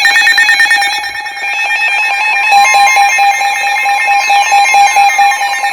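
NOAA Weather Radio emergency alert tones. A steady electronic tone sounds throughout, with a buzzy, rapidly pulsing data-burst pattern in the first second. A second steady alarm tone joins about one and a half seconds in, and several tones slide downward near the end.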